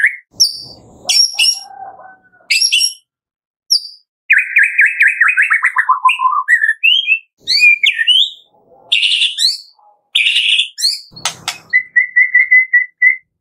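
White-rumped shama (murai batu) singing loud, rapid, varied whistled phrases broken by short pauses. About four seconds in, a long trill slides down in pitch. Near the end there are a few sharp clicks and a fast run of even notes.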